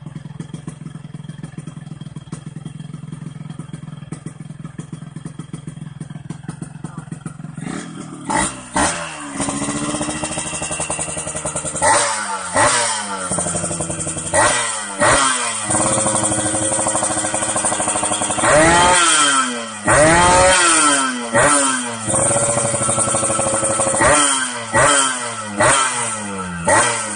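Yamaha RX King 135 single-cylinder two-stroke engine running through an aftermarket silencer. It idles steadily with a fast popping beat for the first eight seconds or so. Then it is blipped over and over, each rev climbing sharply and falling back to idle, with one longer rev about two-thirds of the way through.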